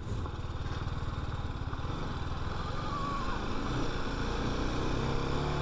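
Single-cylinder engine of a TVS Apache RR 310 motorcycle running steadily while it is ridden.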